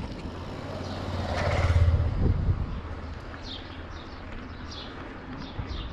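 A motorcycle approaches and passes close by, swelling to its loudest about two seconds in and then fading, over a steady low rumble. From about three seconds in, a bird chirps over and over in short falling notes, roughly twice a second.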